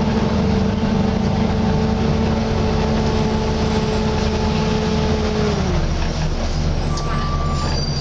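Volvo B9TL bus running, heard from inside the upper deck, its engine cooling fan giving a steady hoover-like whine over the engine and road noise. The whine steps down in pitch about five and a half seconds in.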